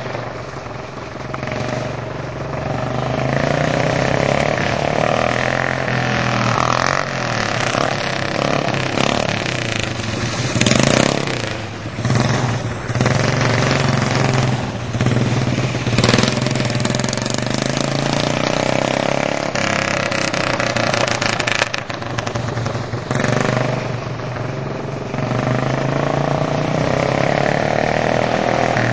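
Honda GX200 single-cylinder four-stroke kart engine running under load, its pitch rising and falling as it revs up and eases off. There are a few short bursts of rushing noise around the middle.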